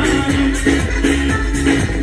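Loud dance music playing over stage loudspeakers.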